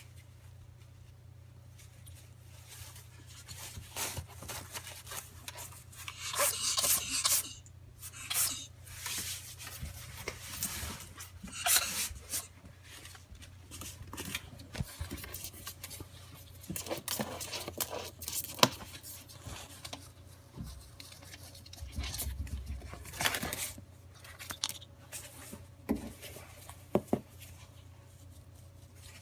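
A ferret's repeated sneeze-like bursts, coming irregularly every few seconds, mixed with rubbing and scraping; the owner is unsure they are true sneezes.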